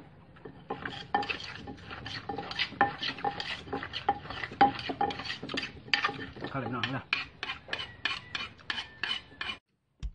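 Wooden pestle pounding and a metal spoon scraping and turning salad in a clay mortar: a quick, uneven run of knocks and clinks, about three a second. It cuts off suddenly near the end.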